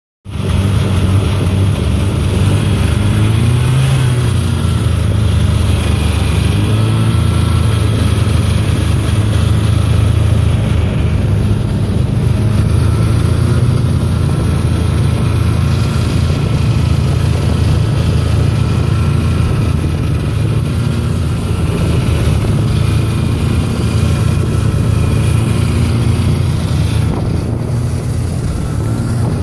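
1987 Polaris Indy Trail snowmobile's two-stroke engine running steadily while riding, its pitch rising and falling a little; the carburettor has been rejetted.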